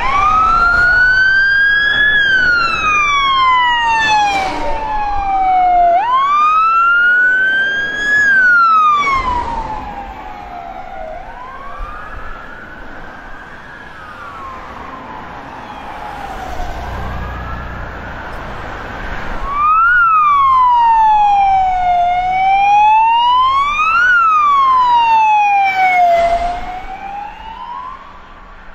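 Sirens of responding fire engines wailing, each slow rise and fall lasting about two to four seconds, at times two sirens overlapping. The wail fades for a while in the middle, then a louder one with sharp peaks and four-second cycles comes in about twenty seconds in.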